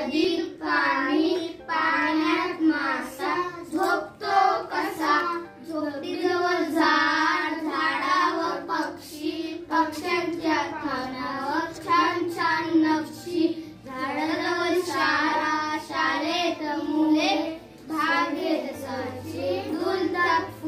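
A small group of children singing a Marathi school poem together in unison, in a steady sing-song tune broken into short lines.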